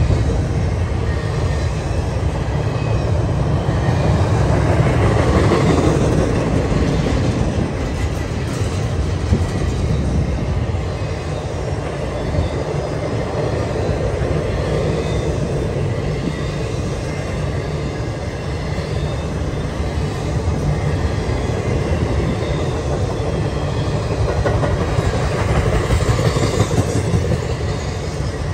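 CSX freight train's double-stack container well cars rolling past, their wheels on the rails making a steady rumble and rattle.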